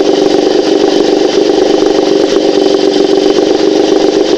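Moskva M two-stroke outboard motor running steadily. There is no knock or ringing: the flywheel no longer rubs on an ignition coil core.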